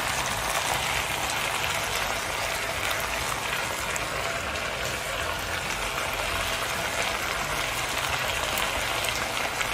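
Yam, tomato and peas sizzling steadily as they sauté in a pot.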